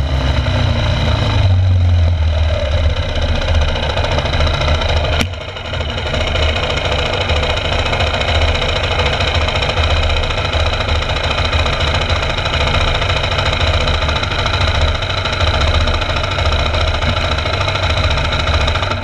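2006 Yamaha YZ250F's single-cylinder four-stroke engine idling with a steady pulsing beat while the bike stands still, with one sharp click about five seconds in. The engine is shut off right at the end.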